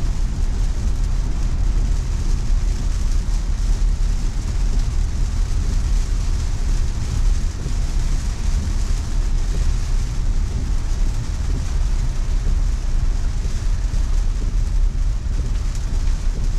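Steady road and tyre noise of a 2020 Tesla Model Y heard inside the cabin while driving on a rain-soaked road, a constant low rumble with a wet hiss over it.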